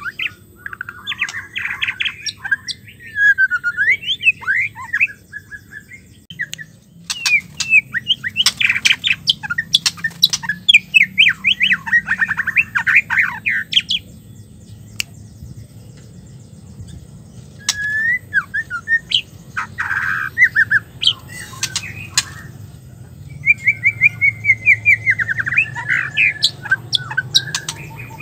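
Female white-rumped shama calling in bouts of rapid, chattering notes. Each bout lasts a few seconds, with short pauses between.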